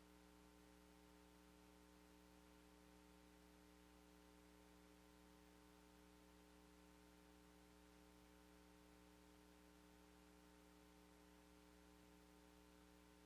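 Near silence: a faint steady electrical mains hum with no other sound.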